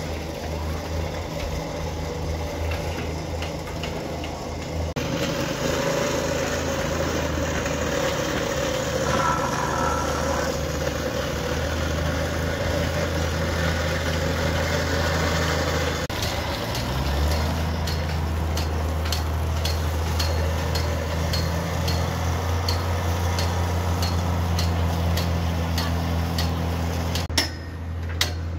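A small engine running steadily, its hum shifting in pitch a couple of times. In the second half it carries light, regular ticks a little more than once a second, and a few sharp taps come near the end.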